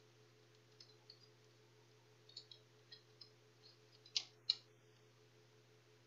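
Faint scattered light clicks and taps of a laptop's plastic chassis and motherboard being handled and worked loose, with two sharper clicks about four seconds in, over a steady low hum.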